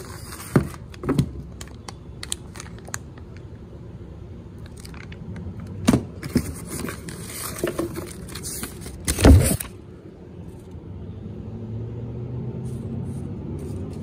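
Cardboard box and plastic bag being handled: rustling and crinkling with several sharp knocks, the loudest about nine seconds in.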